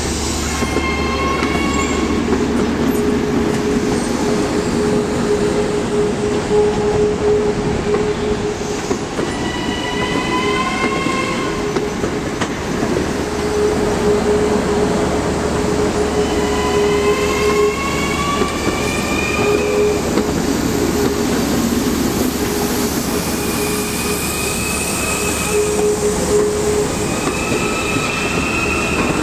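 LIRR M7 electric multiple-unit commuter train rolling past over steady rail rumble, its wheels squealing on the rails several times in rising, wavering tones. A steady hum runs under it.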